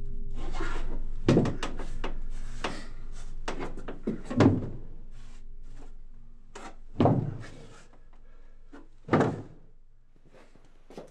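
A string of irregular knocks and thuds, like wooden doors or furniture being handled, the heaviest about four and a half, seven and nine seconds in. Faint low tones linger underneath and fade away.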